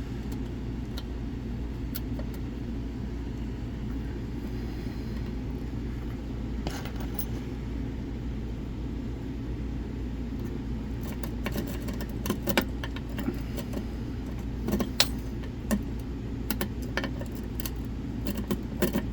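Lock pick raking the small lock of a metal lock box, a scatter of light metallic clicks and rattles that become busier in the second half. The rake is not a smooth one.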